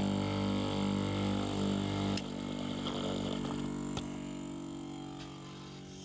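Bench grinder running with a steady motor hum. About two seconds in it is switched off with a click, and the wheel coasts down, its hum slowly fading. There is a sharp knock about four seconds in.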